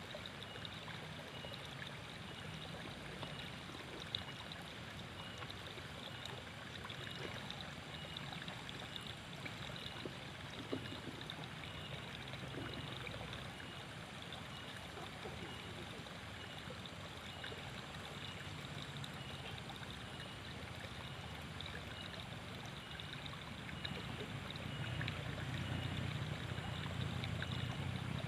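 Water flowing steadily in a ditch, with a faint high note repeating at an even pace over it. Two sharp clicks stand out, and a low rumble grows louder near the end.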